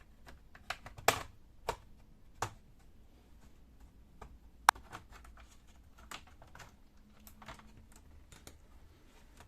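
Irregular sharp plastic clicks and light taps as a prying tool works the palm rest cover of an Asus X551M laptop loose, its clips snapping free. The sharpest click comes about halfway through, and a louder cluster comes about a second in.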